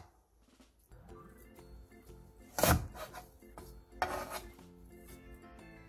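Chef's knife cutting through carrot and striking a wooden cutting board: two strokes about a second and a half apart, the second a little drawn out. Soft background music plays underneath.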